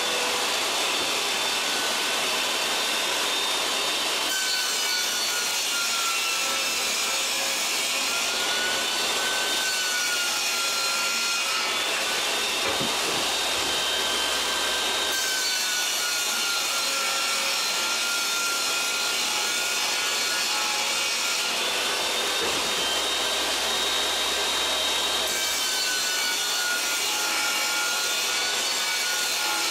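Electric saw running and cutting wood to size for drawer parts, a steady dense noise with a motor whine that wavers slightly in pitch. The sound changes abruptly several times, as cut follows cut.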